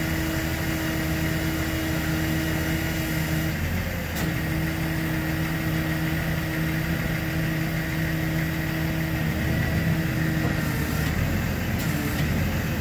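Engine-driven hydraulic system of a Trail King TK80HST trailer running steadily as its hydraulic tail lifts from the lowered loading position to level with the deck: a steady drone with a faint high whine. The drone falters briefly about four seconds in and shifts near the end as the tail reaches level.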